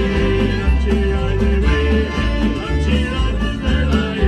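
Live pirate band playing a tune with a steady, repeating bass line.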